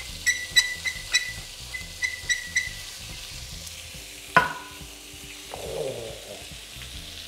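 Steak sizzling on a hot cast-iron griddle pan, with fat spitting in sharp pops through the first few seconds. A single sharp knock with a brief ring, the loudest sound, comes about four and a half seconds in.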